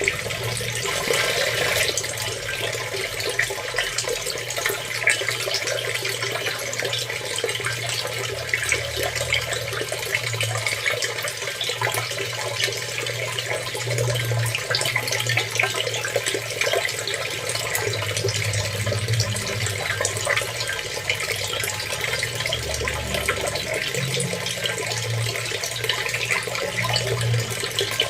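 Running water, a steady, unbroken splashing flow.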